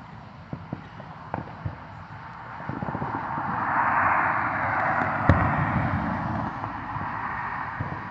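A car passing, its tyre noise swelling to a peak about four seconds in and then fading. Under it are distant fireworks: a few small pops in the first two seconds and one sharp bang about five seconds in.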